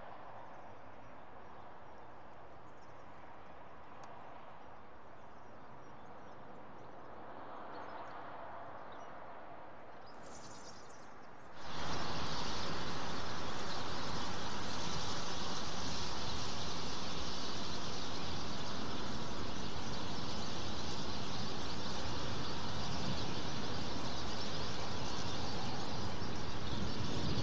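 Steady outdoor background noise, with no clear single source. About eleven seconds in it jumps suddenly to a much louder, steady rushing noise, which then holds unchanged.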